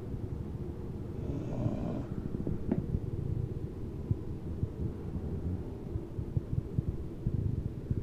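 Sleeping dog snoring, low rumbling breaths.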